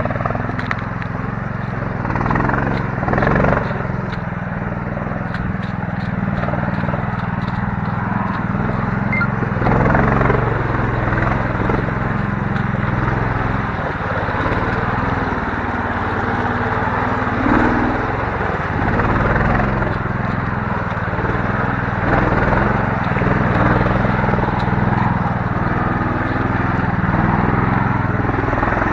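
Small engine of a homemade karakat (all-terrain vehicle) running steadily as it drives, with a low, even drone.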